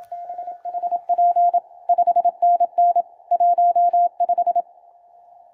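QRP Labs QCX-mini transceiver's CW sidetone: a steady single-pitch beep keyed in Morse dots and dashes, sending a call sign and contest signal report while it transmits into a dummy load. The keying stops a little over four and a half seconds in.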